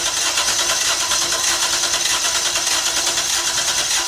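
1994 Toyota T100 engine being cranked over on the starter with a steady pulsing beat, in which a mechanical misfire on one cylinder is heard; the mechanic puts it down to a valve.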